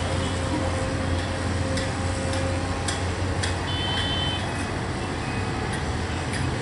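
Komatsu PC200 excavator's diesel engine running steadily as it digs, with scattered clicks and knocks and a short high-pitched beep about four seconds in.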